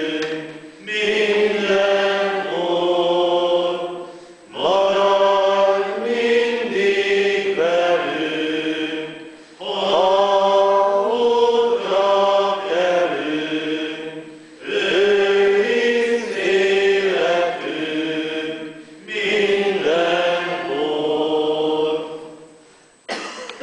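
Church congregation singing a hymn together, in lines of about four to five seconds with short breaths between them. The singing fades out near the end.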